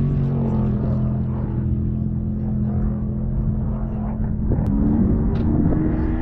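Off-road race vehicle engine running at a steady pitch. From about four and a half seconds in, an engine sound rises and falls in pitch, as when revving or passing.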